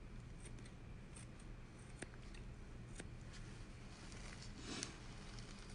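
Dissecting scissors snipping through a preserved frog's thick rectus abdominis muscle: a string of faint, irregular small snips.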